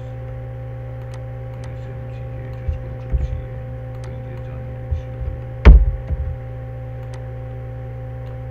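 Steady electrical hum with a few faint clicks and short low thumps; the loudest thump comes a little past halfway.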